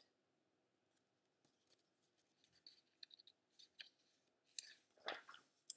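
Quiet page-turning of a paperback picture book: faint rustling and light clicks of paper being handled, with one brief louder sound about five seconds in.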